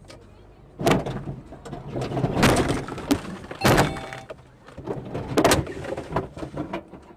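A run of about four loud, irregular thumps and knocks, each followed by a short rattling clatter.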